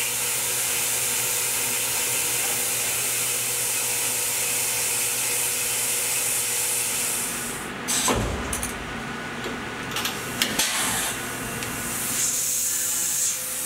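Tormach 1100M CNC mill end-milling an aluminium bracket, with a steady hiss of coolant spray from the nozzles aimed at the cutter. About eight seconds in the hiss drops away, leaving quieter machine sounds with a few sharp clicks, and a short hiss comes back near the end.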